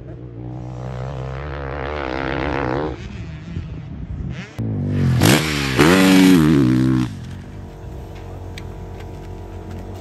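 Honda CRF450RW motocross bike's four-stroke single-cylinder engine revving hard, its pitch rising and falling with the throttle. About four and a half seconds in it turns suddenly loud and close as the bike takes a jump, the pitch dipping and then climbing again. Near seven seconds it drops away to a fainter, steady engine tone.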